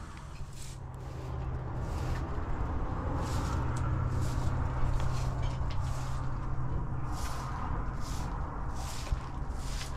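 Footsteps crunching on dry, stony dirt, an irregular stride about one step a second, over a steady low hum.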